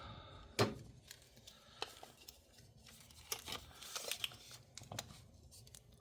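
Handling noise from small objects being moved and set down: a sharp click about half a second in is the loudest, followed by scattered lighter clicks and rustling.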